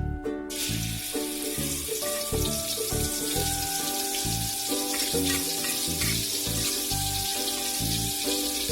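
Food sizzling as it fries in hot oil, the sizzle starting suddenly about half a second in, under background music with a steady beat.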